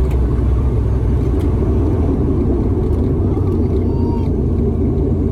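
Steady, loud low rumble inside the cabin of an ATR 72 twin-turboprop airliner, from its engines and airframe as it lands or taxis.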